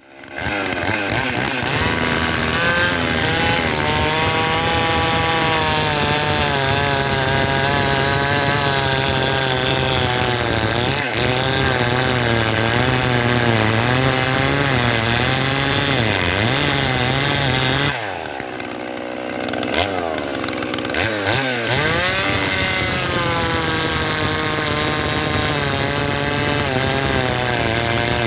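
Modded, ported Partner Formula 500 two-stroke chainsaw running at high revs, its pitch wavering up and down as it cuts wood. About eighteen seconds in the revs drop for a couple of seconds, then climb back.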